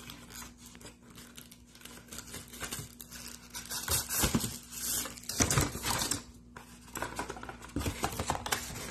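Cardboard packaging being handled: irregular rustling, scraping and crinkling as a boxed item is pulled out of a shipping carton, loudest about four to six seconds in.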